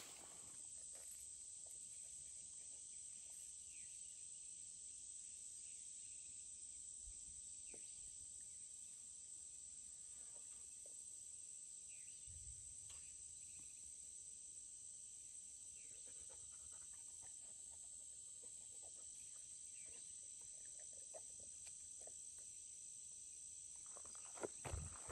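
Near silence with a faint, steady, high-pitched insect drone, and a few faint soft knocks.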